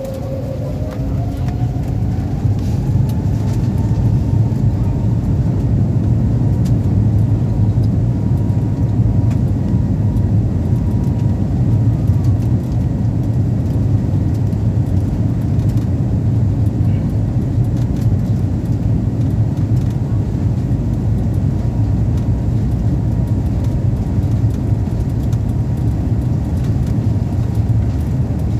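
Airbus A320-family jet engines heard inside the cabin, spooling up for take-off: a rising whine over the first couple of seconds as the sound swells, then a steady, loud low roar.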